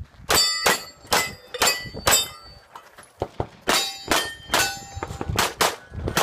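Rapid pistol shots from a Glock, about a dozen, each followed by the ringing clang of a hit steel target. There is a short pause about two and a half seconds in.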